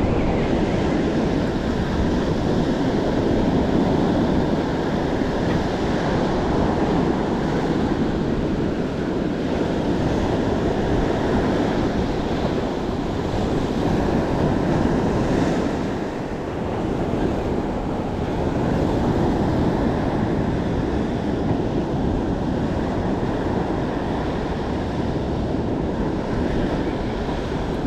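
Ocean surf breaking and washing up the beach, with wind buffeting the microphone: a steady rushing that swells and eases, dipping briefly about sixteen seconds in.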